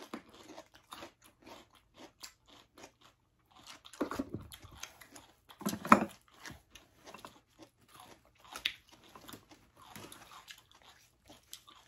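Close-up chewing and crunching of two people eating salted ba khía crab and raw cucumber, with a steady run of small crunches and louder crunches about four and six seconds in.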